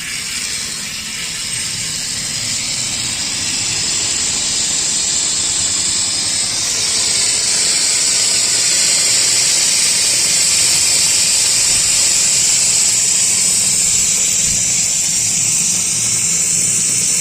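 Portable air compressor running: a low motor hum under a loud, steady hiss of air, slowly getting louder over the first several seconds and then holding steady.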